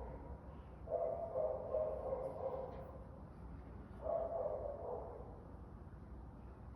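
Metal chain giving two drawn-out, whining squeals, each about a second long and a few seconds apart: the strange noise that turned out to be the chain.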